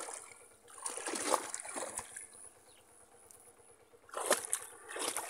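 Shallow water splashing and sloshing in three bursts: once at the start, longer about a second in, and again near the end. A bamboo plunge basket is being pressed down into the water to trap fish, with the fisherman wading around it.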